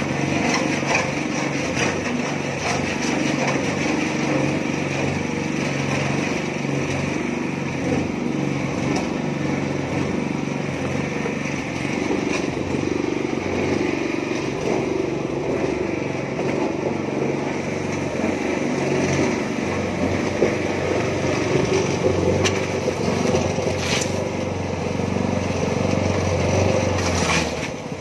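Small petrol engine of a mini concrete mixer running steadily. A couple of sharp knocks come near the end.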